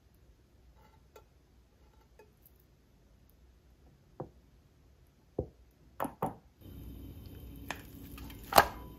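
Kitchen utensils knocking and clicking a few times, each knock short and sharp. About two-thirds of the way in a steady hiss starts, and the loudest knock comes near the end.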